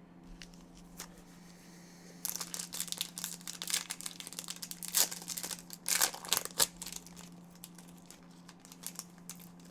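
Trading-card pack wrapper being torn open and crinkled by hand: a run of crackling that starts about two seconds in and thins out after about five seconds, over a steady low hum.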